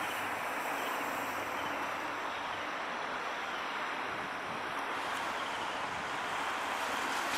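Steady outdoor rushing noise of wind and distant traffic, with a faint high thin whine that stops about five seconds in.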